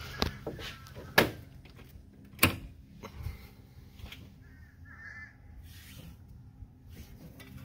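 Hands knocking against and handling hoses and fittings in a Porsche 944 Turbo's engine bay. Three sharp knocks come in the first two and a half seconds, then quieter handling noise.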